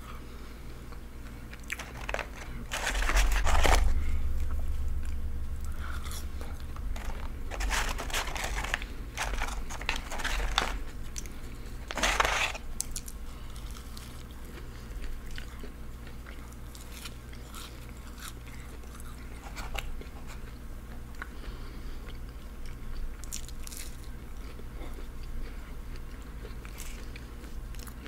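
Close-miked chewing and crunching of McDonald's fast food, with several loud crunchy bites about three, eight and twelve seconds in, over a steady low hum.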